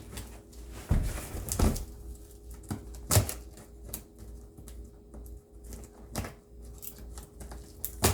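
Handling noises as a package is worked at with a metal key: a few scattered sharp clicks and knocks over soft scraping and rustling.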